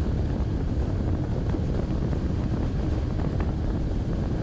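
Fishing boat's outboard motor running at speed with the boat on plane, a steady deep rumble mixed with wind noise on the microphone.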